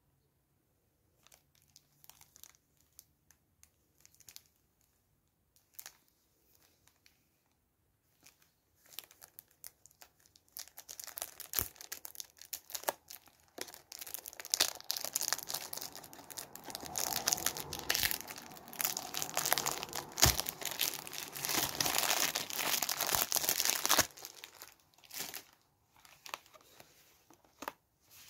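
Cellophane shrink wrap crinkling and tearing as it is peeled off a cardboard perfume box. A few faint taps of handling come first. The crackling starts about ten seconds in, grows loud and dense, then stops abruptly a few seconds before the end, leaving a few light ticks.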